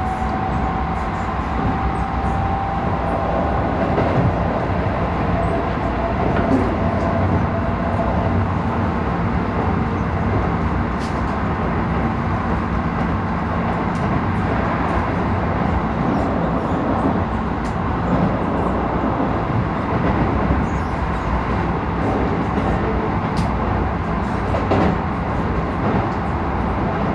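Keisei 3000 series electric commuter train running between stations: a steady rumble of wheels and running gear, with a faint high whine that drifts down and fades out over the first few seconds, and occasional sharp clicks.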